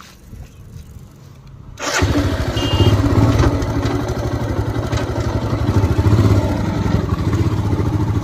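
Motorcycle engine started about two seconds in, catching at once and then idling with a steady low pulsing beat.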